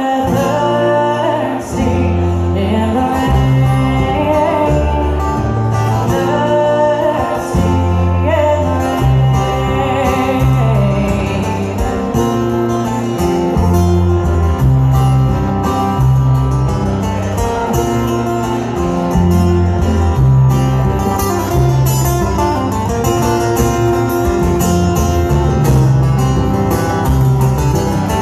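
Live bluegrass band playing, with strummed acoustic guitar and a plucked upright bass keeping a steady beat, and singing over the instruments.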